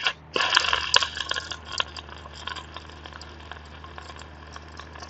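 MIG welding arc crackling on a steel tractor pin. It strikes briefly right at the start, then runs again from about half a second in, loudest for the first second and a half and then steadier and quieter.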